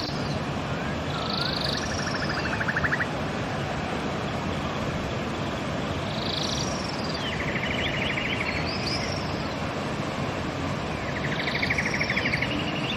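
River water rushing steadily, with a songbird singing the same phrase three times: a cluster of high notes with short downward glides, then a rapid buzzy trill a little lower.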